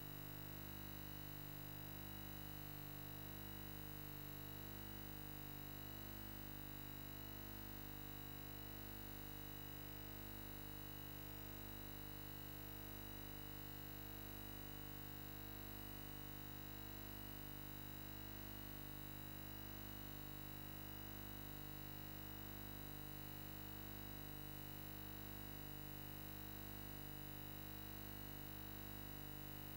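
Steady electrical hum and hiss of line noise, unchanging throughout, with no other sound.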